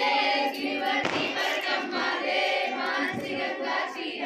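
A group of women singing together, many voices overlapping.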